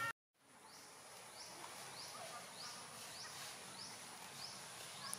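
Outdoor wildlife background: a steady high insect whine with a short rising chirp repeated regularly, a little under two a second. It fades in after a sudden cut to silence just after the start.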